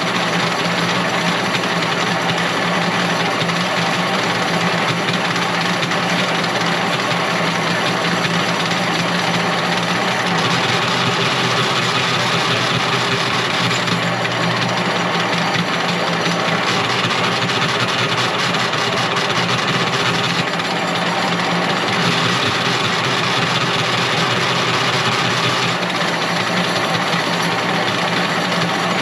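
A machine running steadily, with a low hum whose pitch shifts slightly a few times.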